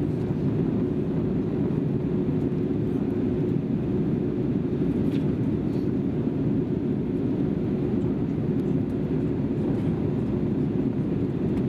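Airbus A320 cabin noise in flight: a steady low rumble of the engines and airflow, with a faint constant hum.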